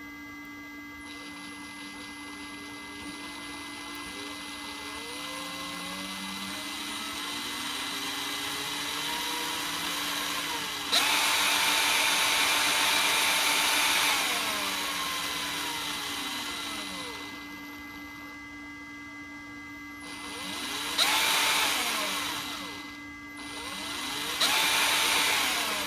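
Cordless drill's brushed DC motor and gearbox running under its variable-speed trigger: a rising whine as it speeds up slowly, then a sudden jump to full speed about 11 seconds in as the trigger is pressed all the way and the speed regulator is bypassed, then winding down. Two more short runs to full speed come near the end.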